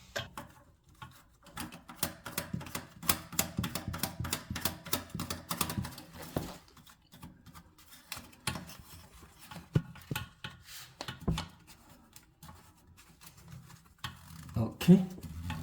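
Rapid plastic clicking and rattling as a new toilet fill valve's plastic lock nut is spun onto its threaded shank and tightened by hand, dense at first and sparser in the second half.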